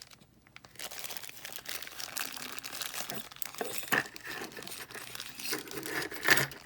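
Packaging crinkling and rustling as it is handled, with a few sharp clicks of small parts being picked up and set down.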